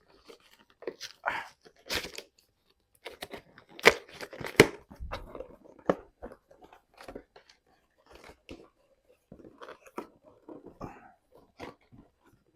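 Product box being prised open by hand: irregular crackles, scrapes and tearing of its packaging, loudest in a couple of sharp snaps about four seconds in.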